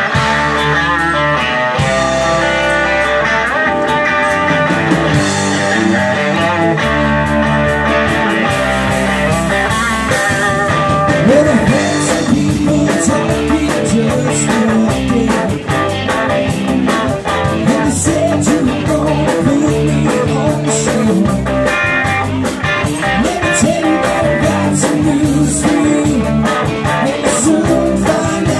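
Live blues-rock played through an amplified Stratocaster-style electric guitar over a bass line with a steady beat, with a man's singing joining in.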